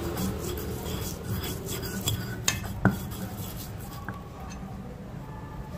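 Dishes and utensils clinking and knocking in quick succession, with one louder knock about three seconds in.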